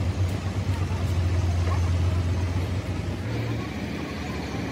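An engine running steadily with a low hum, which shifts slightly in pitch about three seconds in.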